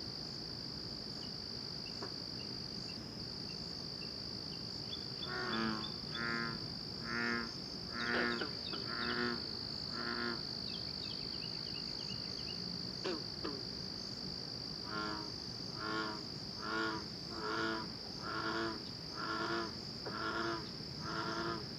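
Frogs calling in short calls repeated a little under a second apart: one run of about six calls from about five seconds in, and a longer run from about fifteen seconds in. A steady high-pitched insect chorus runs underneath.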